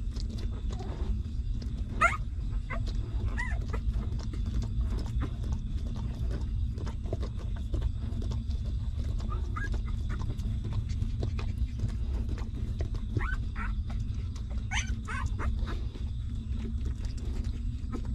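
Newborn puppies nursing: soft suckling and smacking clicks, with a few short, high squeaks and whimpers. The sharpest squeak comes about two seconds in and a cluster comes near the end. A steady low rumble lies underneath.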